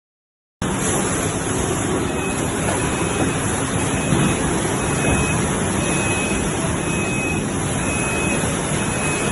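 Steady machinery din of a chest freezer production line, cutting in abruptly about half a second in, with a faint high tone repeating in short pulses.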